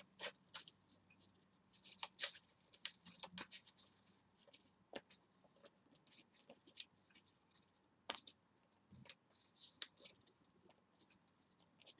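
Trading cards being shuffled by hand: faint, irregular soft clicks and scrapes of card against card.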